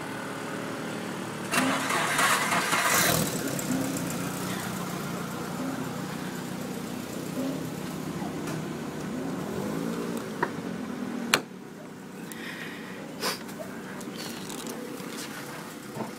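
Car engine running steadily, with a louder rush about two seconds in. A sharp click like a car door shutting comes about eleven seconds in, after which the engine sound is quieter.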